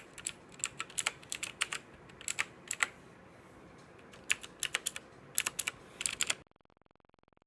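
Typing on a TVS Gold Bharat mechanical keyboard: irregular clicking keystrokes in two short runs with a pause between, stopping about six seconds in.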